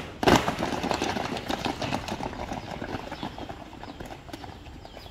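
Drill boots of a marching squad striking asphalt: a loud unison stamp about a quarter second in, then a dense patter of many footfalls slightly out of step that grows gradually quieter.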